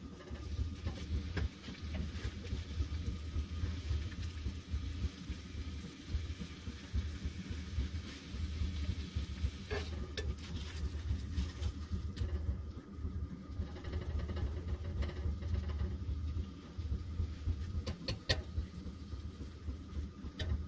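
Eggs and slices of meat sizzling in a skillet on a propane camp stove, over a steady low hum. A few light clicks about halfway through and near the end.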